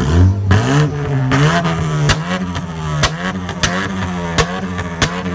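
A car engine revs up, then is held at high revs that waver and dip, with several sharp cracks along the way.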